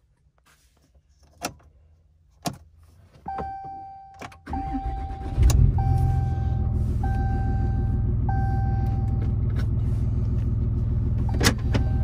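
A couple of clicks, then a warning chime dinging about once a second as the Ram 3500's diesel engine cranks and fires about five seconds in, settling into a steady idle. A sharp knock near the end.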